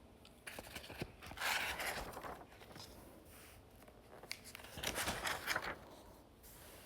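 Notebook paper pages being handled and turned: two short rustles, one about a second and a half in and one about five seconds in, with a few light clicks.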